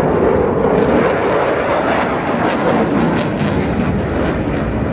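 Jet noise from an RAF Eurofighter Typhoon's twin EJ200 turbofan engines during its display flight: a loud, steady rush with faint crackles through it.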